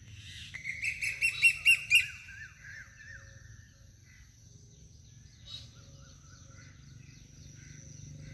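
Birds calling: a quick run of loud, clear calls from about half a second to two seconds in, then fainter chirping calls that die away.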